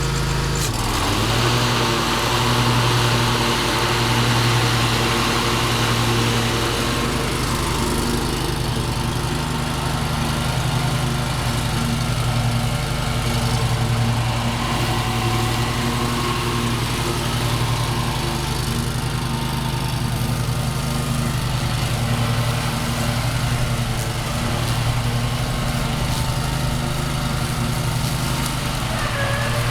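Kawasaki 17-horsepower engine of a Yazoo/Kees Mini Max zero-turn mower running steadily, with a click and a slight drop in pitch about a second in.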